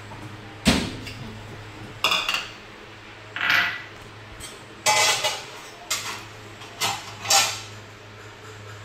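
A string of separate clinks and clatters, like dishes and utensils being handled, with a heavier thump about a second in. A steady low hum runs underneath.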